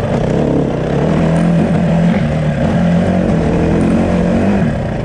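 Dirt bike engine running under way on a trail, recorded close up from the bike itself, holding fairly steady revs with small rises and falls.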